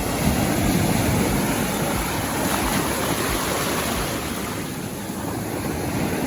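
Loud, steady rushing of wind and water, with wind buffeting the microphone.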